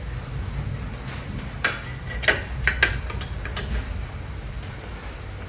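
Eating sounds while chewing steamed momo: a handful of short, sharp clicks and smacks in the middle, over a steady low hum.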